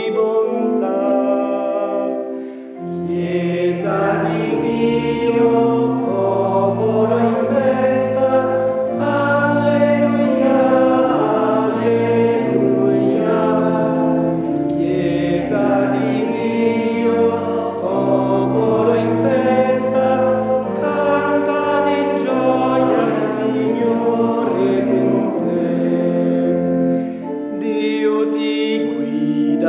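Church choir singing sacred music with sustained accompaniment; a low bass line comes in about three seconds in.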